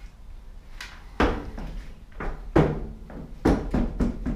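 About five sharp knocks and thumps inside a box truck's empty cargo box, from wooden floor framing strips being handled on the floor and from footsteps. The hits are spaced unevenly, with the last three coming quickly together.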